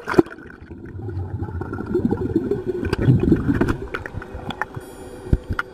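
Underwater, a scuba diver's exhaled bubbles from the regulator rumble and gurgle for about three seconds, then ease off. Scattered sharp clicks come through alongside.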